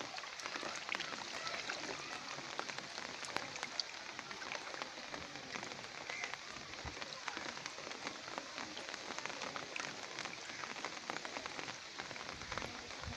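Steady rain falling, heard as an even hiss dotted with many small drop ticks.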